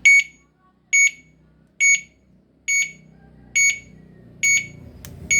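An electric bicycle's turn-signal beeper, wired through its new horn unit, beeps in time with the flasher. The beeps are short, high and evenly spaced, a little under one a second.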